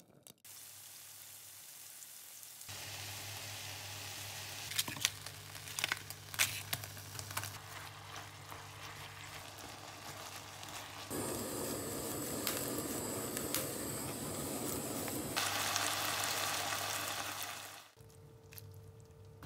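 Spicy pork and bean-sprout stir-fry sizzling in a frying pan over a steady low hum. Utensils click against the pan a few times a few seconds in. The sizzling grows louder about halfway through and cuts off near the end.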